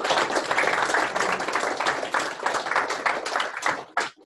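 A small room of people applauding, many hands clapping at once; it thins to a few last separate claps and stops near the end.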